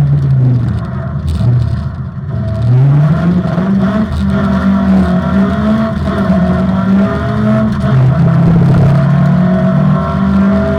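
Opel Manta rally car's engine at high revs. The pitch drops early on, climbs steeply from about two and a half seconds in, then holds high with small dips and rises as the driver shifts and works the throttle.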